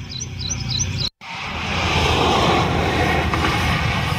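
Outdoor field sound: a short run of quick, high chirps from a small bird over a low rumble, broken off about a second in, then a steady, loud, noisy rumble like wind or a distant engine.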